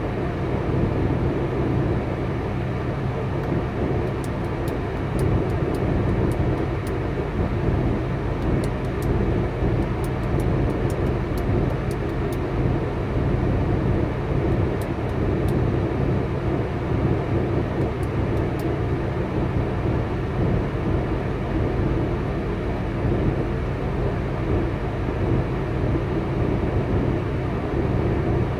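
Diesel semi-truck engine idling steadily, heard from inside the cab, with a few faint ticks in the first half.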